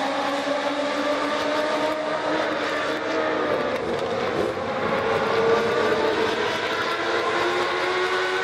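A pack of Legends race cars running laps, their Yamaha motorcycle engines at high revs. Several engine notes overlap, slowly rising and falling.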